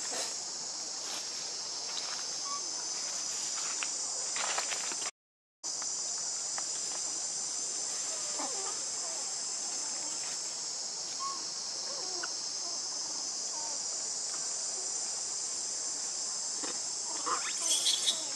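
Steady, high-pitched chorus of insects in forest, cut off completely for about half a second some five seconds in.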